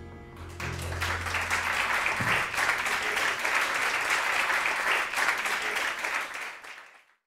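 Club audience applauding at the end of a live jazz song, the claps swelling up about half a second in over the band's last held bass and piano note, then fading out near the end.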